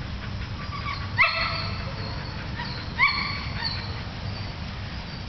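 A dog gives two high-pitched yelping whines, about two seconds apart, each sharp at the start and held for about half a second.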